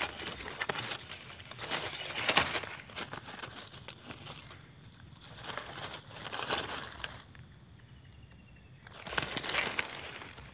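Dry grass and fallen leaves rustling and crackling as they are pushed aside by hand and knife to clear around a wild mushroom, in three bursts of handling.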